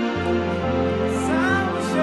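String ensemble holding slow sustained chords in B-flat for worship, the bass note changing just after the start and again about a second and a half in, with a higher line with vibrato coming in near the end.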